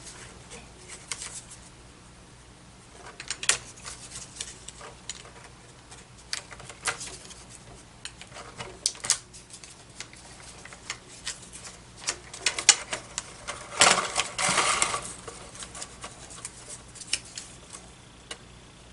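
Paper handling: a strip of Glue Dots and its backing paper rustled and crinkled between fingers, with scattered small clicks and a longer rustle past the middle.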